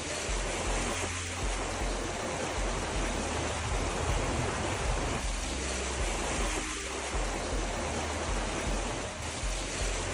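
Steady rushing of water, a dense even hiss with an uneven low rumble beneath it.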